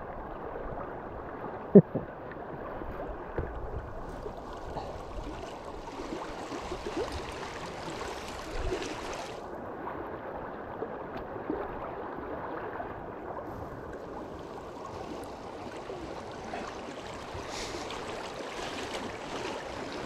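River current rushing steadily, an even water noise that turns brighter and hissier for a few seconds twice, with one brief sharp sound about two seconds in.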